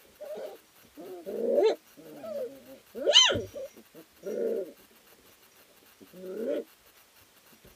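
Three-week-old puppies whining and grunting in a string of short calls while they wrestle, with one loud yelp that rises and falls in pitch about 3 seconds in.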